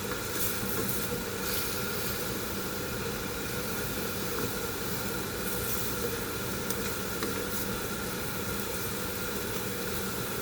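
A pan of sautéed bitter gourd sizzling with a steady hiss as it finishes cooking.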